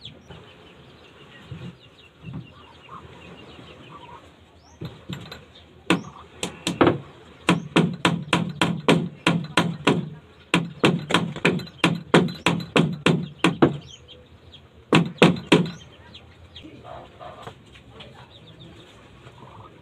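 Hand hammer striking the wooden planking of a small boat hull: a long run of steady blows, about three a second, starting about six seconds in, then a short group of a few more blows after a brief pause.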